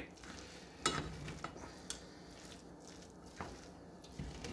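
A plastic spoon stirring a mix of cooked rice, vegetables and chicken in a metal saucepan: faint soft scraping and squishing with a few light knocks against the pan.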